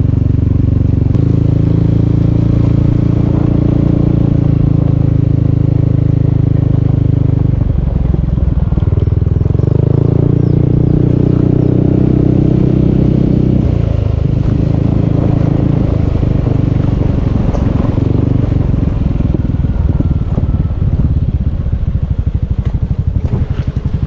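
Small motorcycle engine running under way, its pitch shifting with changes of speed about a second in and again around seven and fourteen seconds in, then easing off to a low, pulsing idle near the end.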